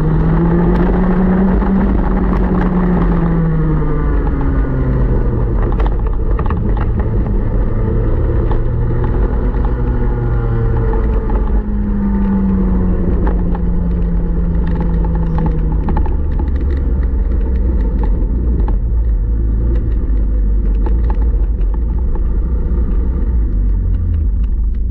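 A 125 cc TaG two-stroke kart engine heard from on board, its pitch rising and falling twice at low revs, then settling to a low steady idle for the last several seconds, with steady wind and road noise over it.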